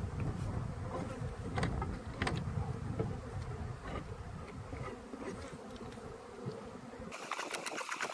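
Honey bees buzzing in a dense, steady hum around an opened hive while frames are being worked, with a few light knocks. Near the end the low hum drops away and a short flurry of sharp clicks takes over.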